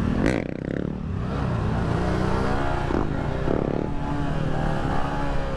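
Dirt bike engine running while being ridden on the road, at a fairly even level.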